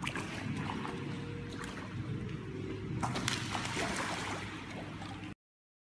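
Pool water splashing and sloshing as a dog goes into the water and paddles after a ball, with a busier burst of splashing about three seconds in. The sound cuts off suddenly near the end.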